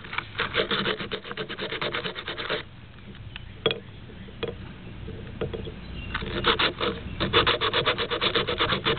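A plastic Rubik's cube edge piece rubbed rapidly back and forth on sandpaper, a quick, even run of scraping strokes that smooths the bumps off its sides. The sanding stops for about three and a half seconds, with a few light clicks, then starts again about six seconds in.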